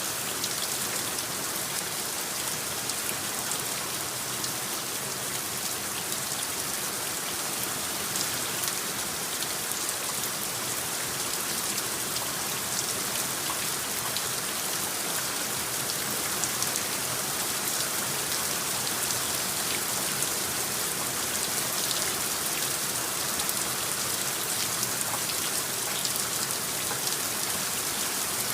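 Steady rain in a designed rain soundscape: an even hiss with many small, crisp drop ticks, holding at one level throughout.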